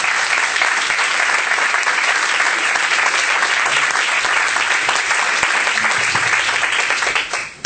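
Room full of people applauding steadily, with the panelists at the table clapping too. The applause dies away sharply near the end.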